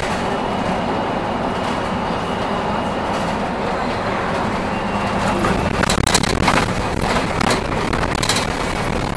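Solaris Urbino 8.9LE city bus on the move: steady engine and road noise, with a faint high whine in the first half and several rattles or knocks from about six to eight and a half seconds in.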